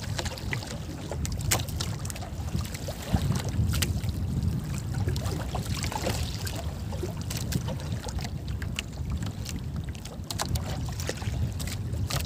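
Wind rumbling on the microphone and water sloshing against the hull of a small outrigger boat, with scattered small knocks and ticks.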